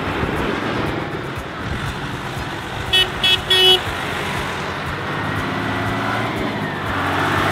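Farm tractors drive past one after another with their engines running. About three seconds in, a horn toots three times in quick succession; the third toot is the longest.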